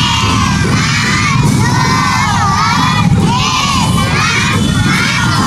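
A crowd of young children shouting and cheering together, many high voices overlapping.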